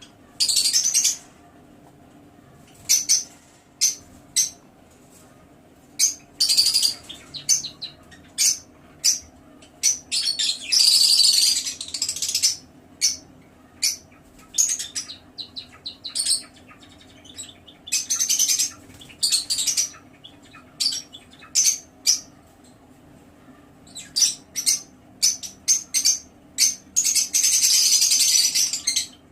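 Lovebirds calling in an aviary: many short, shrill, high-pitched chirps, broken by several denser bouts of rapid chattering, each about a second long.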